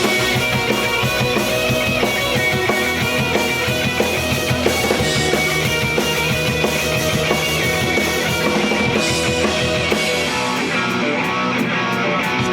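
Rock music with drums and guitar, played loud over a stage sound system.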